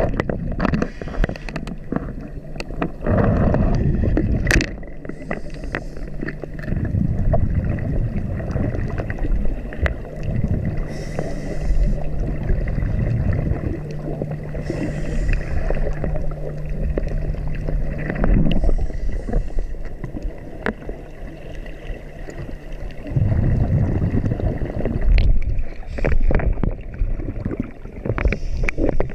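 Scuba diver breathing through a regulator, heard from a helmet camera underwater: a short hiss on each inhale and a gurgling rumble of exhaled bubbles, repeating every few seconds over a steady low hum.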